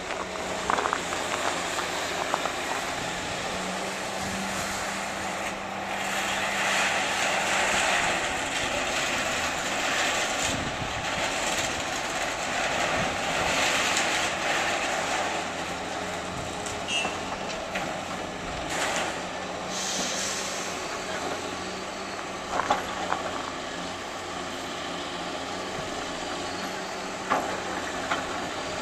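Heavy demolition equipment running steadily while broken concrete slabs are cleared, with a few sharp knocks near the end.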